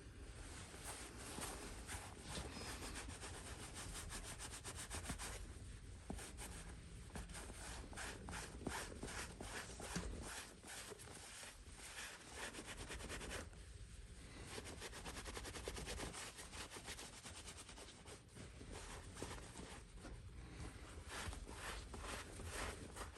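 Cotton t-shirt rag rubbing over the leather of a baseball glove, wiping off excess mink oil and beeswax conditioner. It goes in quick repeated strokes, with short breaks about five and thirteen seconds in.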